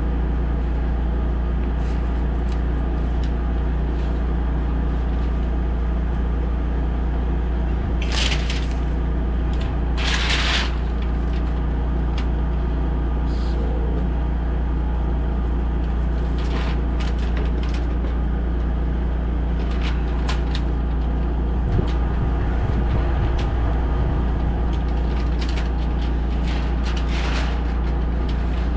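A machine running steadily with a low drone. Two short hissing bursts come about eight and ten seconds in, with lighter clicks and ticks throughout.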